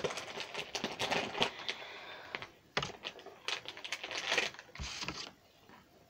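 Crinkling and rustling of gift bags and paper being rummaged through by hand: a quick, irregular run of crackles and clicks that stops about five seconds in.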